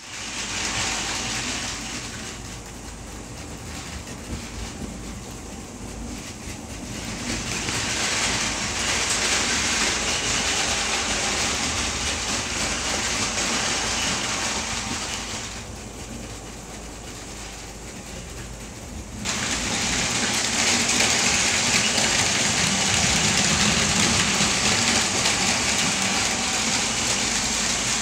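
Several motorised Plarail Advance toy Shinkansen trains running on plastic track: a steady whirring hiss that swells and fades, then jumps suddenly louder about nineteen seconds in.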